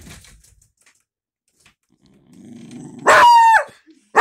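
Dog growling low, then one loud, drawn-out bark about three seconds in, its pitch dropping at the end.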